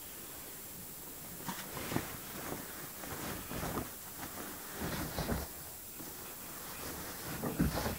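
Clothes and sheets being pushed by hand into the drum of a front-loading washing machine: irregular rustling of cloth with soft knocks against the drum and door, a little louder near the end.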